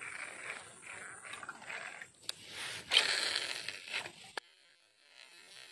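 Rustling, scraping handling noise from a baitcasting reel and rod held close to the microphone, with a few clicks and one sharp knock about three seconds in. It cuts off suddenly after about four and a half seconds.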